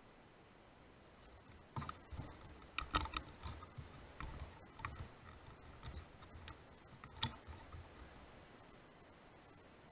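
Handling noise: irregular soft knocks, rustles and clicks as the rifle is shifted and re-aimed, picked up close by the clip-on night-vision scope's own microphone, with one sharper click about seven seconds in.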